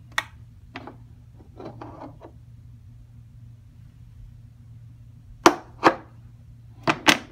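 Hard clicks and knocks of a mannequin arm being pulled off its magnetic joint and handled: a sharp click just after the start, a few lighter knocks around two seconds in, then four sharp knocks in two pairs near the end, the first of them the loudest.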